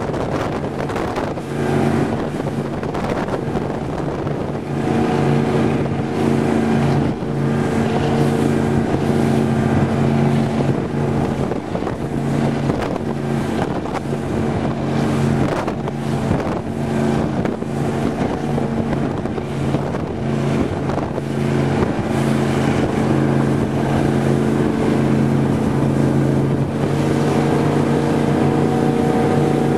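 Big-block Ford 460 V8 of a Raider 26 powerboat running at a steady high speed, with a dip in the note about halfway through. Wind buffets the microphone and water rushes past the hull.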